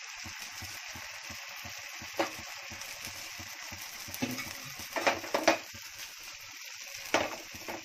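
Batter sizzling steadily in ghee in a non-stick frying pan as a thin flatbread cooks. A few short, light knocks come about two seconds in, in a cluster around five seconds, and once near the end as the ladle and pan are handled.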